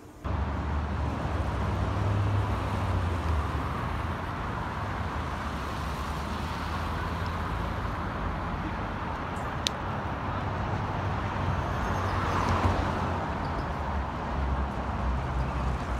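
Road traffic on a wide multi-lane city street: cars passing with a steady mix of tyre and engine noise, swelling briefly about twelve seconds in as a car goes by.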